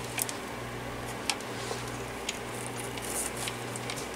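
A few light clicks and taps from small fan parts being handled during reassembly, over a steady low hum.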